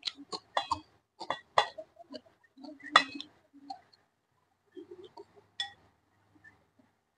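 Chopsticks clinking against a glass rice bowl in a series of sharp clicks, the loudest about three seconds in, with chewing and mouth sounds from eating vegetables and rice in between.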